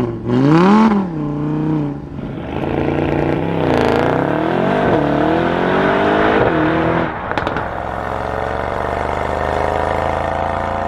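Car engine and exhaust revving up and down several times, then from about seven seconds in a long steady pull with the pitch slowly rising as the car accelerates.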